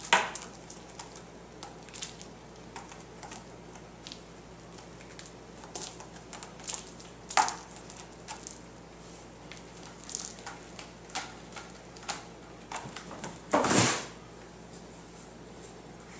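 Bengal cats climbing and scrambling on a carpeted cat tree with sisal-wrapped posts: scattered scratches, knocks and light thumps of claws and paws. There is a sharp knock at the start and a longer, louder scuffle near the end.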